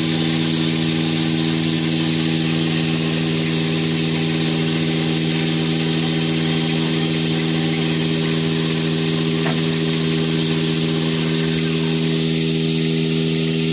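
CNC nesting router running with no cut under way: a steady hum of several low tones under a constant hiss, unchanging throughout.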